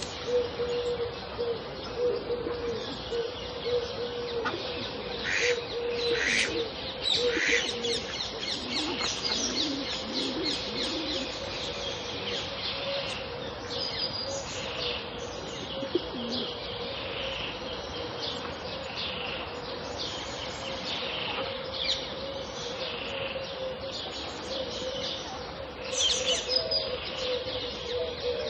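Pond ambience with a mix of birds chirping and trilling, overlapping calls throughout, busiest early on and again near the end, over a steady low tone.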